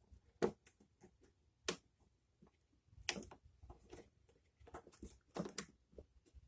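Scattered light clicks and knocks of lawn mower handle parts being handled and pushed into place, a single one every second or so at first, then a small cluster about three seconds in and another near the end.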